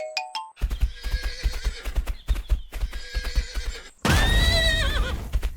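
Horse hooves clip-clopping in a quick run of knocks, then a horse whinnying loudly from about four seconds in, the call holding high and wavering down at its end.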